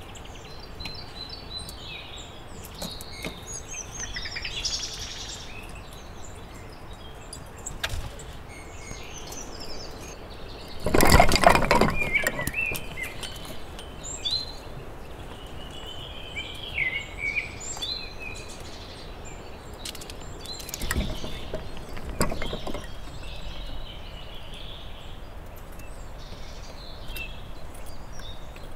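Wild songbirds chirping and singing, with short high calls repeating throughout. About eleven seconds in, a loud burst of rustling and scraping lasts a second or so, and a few softer knocks and rustles follow around twenty-one seconds in.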